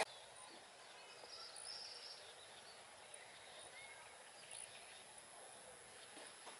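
Faint outdoor ambience: a low, even hiss with a few faint, high chirps about one to two seconds in.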